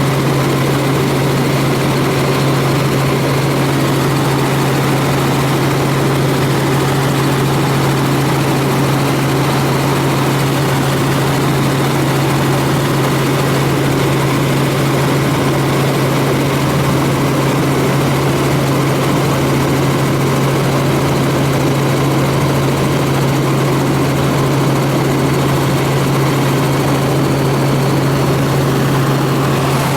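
Helicopter in flight: a steady, unbroken drone of rotor and engine with a strong constant low hum.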